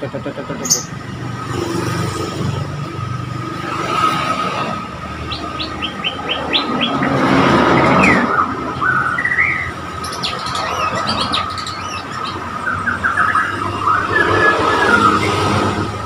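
Caged murai Borneo (white-rumped shamas) singing: scattered whistles, quick chirp runs and trills, busiest in the second half, over a steady low background rumble.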